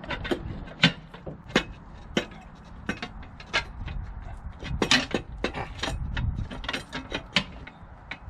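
Irregular clicks and knocks of a steel wheel-clamp arm being worked into place on the clamp's centre section, over a low rumble.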